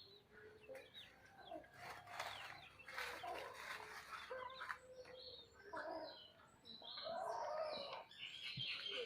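Hens clucking in a run of short, repeated calls, busiest near the end.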